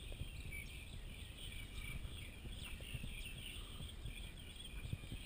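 Outdoor tropical ambience: short chirping calls of small birds and insects, repeated throughout, over a low rumbling noise underneath.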